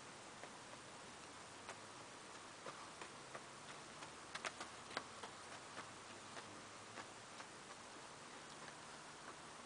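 Hooves of an Icelandic horse walking on frosty ground: faint, irregular clicks over a steady hiss, loudest about four to five seconds in as the horse passes close.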